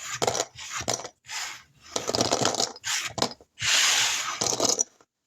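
Small dominoes clattering and scraping against each other in several bursts as they are gathered up and put away, with sharp clicks of tile on tile.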